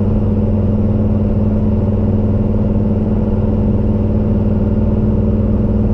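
A vehicle engine running at a steady speed, a loud even low drone with no revving.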